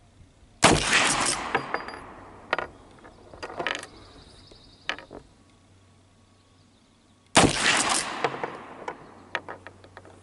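Two shots from a Winchester 1866 Yellow Boy lever-action short rifle in .45 Colt firing 250-grain handloads, about seven seconds apart, each trailing off in an echo over a second or so. Smaller sharp clicks and clacks of the lever action being worked come between the shots and after the second.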